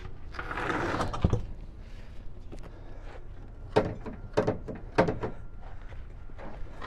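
A cargo van's spare tire dragged out across asphalt from under the rear bumper, scraping for about a second and ending in a thump. Then three sharp knocks a little over half a second apart, with a few fainter ones after, as the tire and tools are handled.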